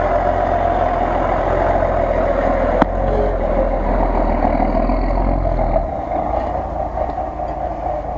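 Engine of a lifted Jeep Cherokee off-roader on large mud tyres running steadily under load as it crawls past through snow, with a deep rumble. The rumble drops away about six seconds in as the truck pulls off, and there is a single sharp click near three seconds in.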